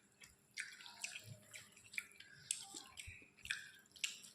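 Close-miked wet eating sounds: chewing with short, moist smacking clicks about twice a second.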